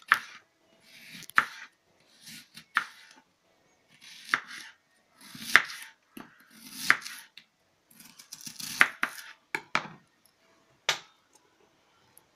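Knife slicing an onion into rings on a plastic cutting board: each cut is a short slicing sound ending in a sharp tap of the blade on the board, about one cut a second at an uneven pace. The cutting stops about eleven seconds in.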